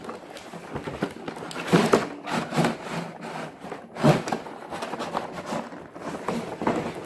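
Cardboard box and packaging being handled and pulled apart: continuous rustling and scraping with a few knocks, the loudest about two and four seconds in.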